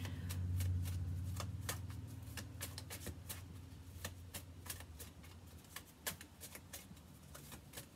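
A tarot deck being shuffled and handled: a run of quick, irregular card clicks, several a second. Under it a low hum fades away over the first few seconds.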